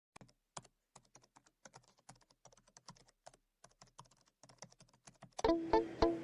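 Quick, irregular clicking of keys being typed on a keyboard. Near the end, background music with plucked-string notes on a steady beat comes in.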